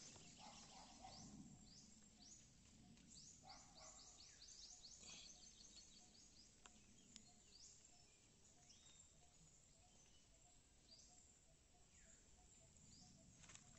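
Quiet forest ambience: faint birds giving quick falling chirps, in brief flurries, with a soft note repeating evenly through the second half.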